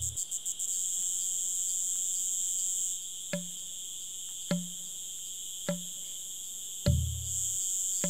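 Cicada singing: a steady high buzz, with a shriller upper layer that drops away about three seconds in and comes back near the end. Soft low knocks, each with a short deep tone, come about every second, the last one the loudest.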